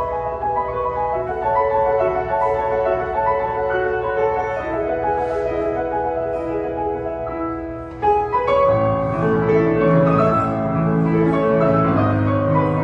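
Background music carried by a piano melody; a little after the middle it briefly dips, then deeper bass notes come in and it gets fuller.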